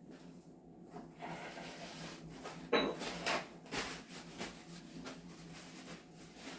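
Rubbing and scraping handling noises with one sharp knock about three seconds in, over a steady low hum.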